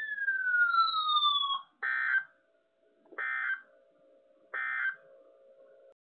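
A siren-like tone sliding down in pitch and stopping, then three short identical bursts of Emergency Alert System digital data tones (SAME), each about half a second long and spaced about 1.3 seconds apart: the End of Message code that closes an alert broadcast.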